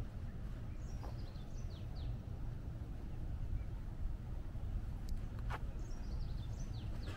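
A bird singing a short phrase of quick falling high notes, twice, about five seconds apart, over a steady low rumble.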